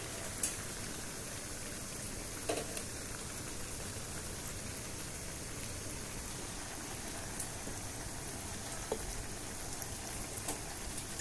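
Chicken chilli sizzling steadily in a wok over the flame, an even frying hiss with a few light clicks.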